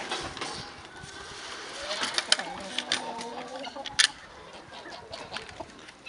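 Domestic chickens clucking, with a few sharp clicks or knocks, the loudest about four seconds in.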